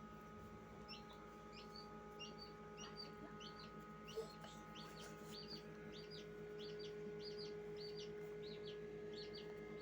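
Chicks peeping: a faint, steady series of short high peeps, two or three a second. A steady electrical hum runs underneath.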